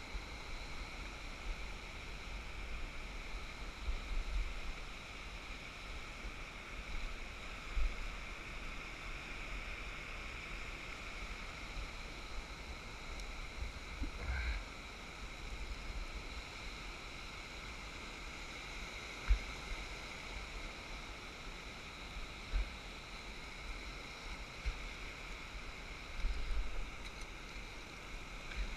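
Steady wash of small surf waves breaking on a sandy beach, with wind buffeting the microphone in scattered low thumps.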